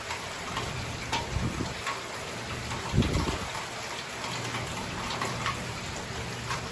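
Heavy hurricane rain falling steadily, with drops spattering close by. A brief low rumble swells about three seconds in.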